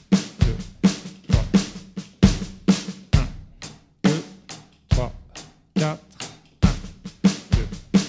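Roland electronic drum kit playing a basic rock "pumchak" groove of bass drum and snare, alternating with a one-bar break of accented sixteenths on the dotted-eighth cycle. Sharp, evenly spaced drum strokes with deep kick hits.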